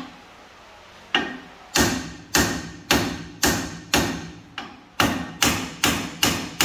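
Steel hammer striking the truck's front steering knuckle again and again, about a dozen sharp blows at roughly two a second, each ringing briefly. He is shocking loose a seized tapered joint stud.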